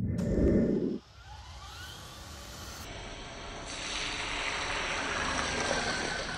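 A short low boom in the first second, then a steady rushing noise of creek water that grows louder about halfway through, with faint rising whines from a Traxxas TRX-4 RC crawler's electric motor.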